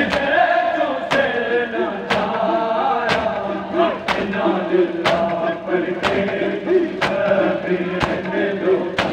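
A group of men chanting a noha lament in unison, with their hands striking their chests together in matam about once a second.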